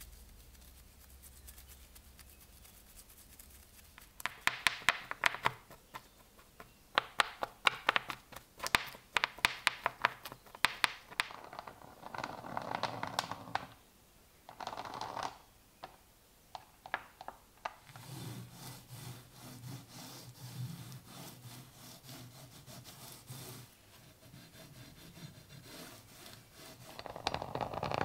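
A small stiff brush scrubbing the pitted iron of a bayonet in quick, scratchy strokes. Later come softer sounds as oil is squeezed from a plastic nozzle bottle onto the blade.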